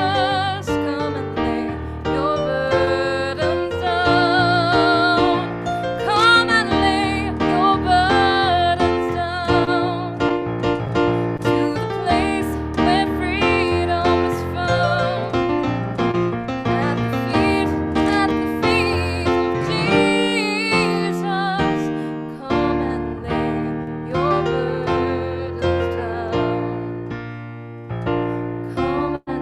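Music: a singing voice with vibrato over piano accompaniment.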